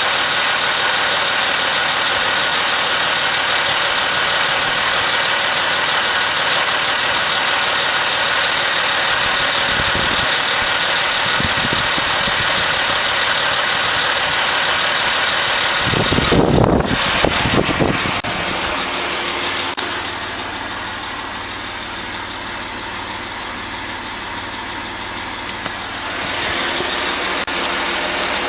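Land Rover Discovery 3 idling while its electronic air suspension raises the vehicle: a steady mechanical running with a thin whine. A few low thumps come about ten seconds in, and a louder cluster around sixteen to eighteen seconds. The running drops quieter about twenty seconds in and picks up again near the end.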